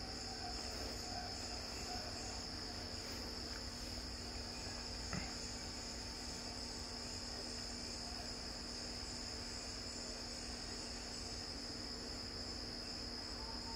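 Quiet room tone: a steady high-pitched whine over a low hum, with one faint tap about five seconds in.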